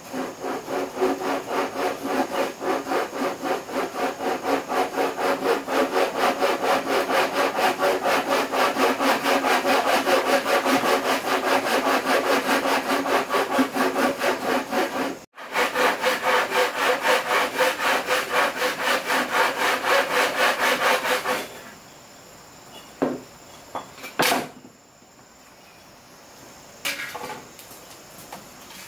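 Hand sawing: quick, steady back-and-forth strokes that stop suddenly about two-thirds of the way through, followed by a few separate knocks.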